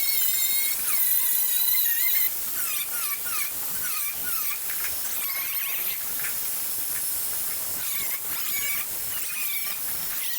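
Abrasive power tool working the steel of a truck's radiator support during rust repair: a steady gritty hiss with squeals that wobble and bend in pitch.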